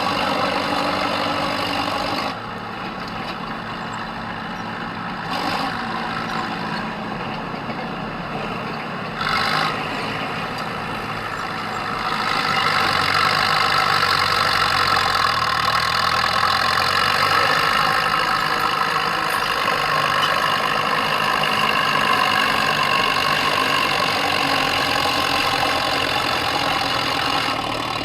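A vehicle engine running steadily, with a dip in level about two seconds in, short surges near five and nine seconds, and a louder, brighter run from about twelve seconds on.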